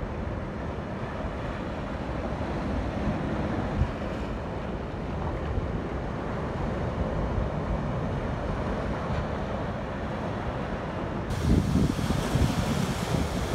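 Wind blowing over the microphone on top of sea surf washing against a rocky shore, a steady rushing noise. Stronger gusts rumble on the microphone near the end.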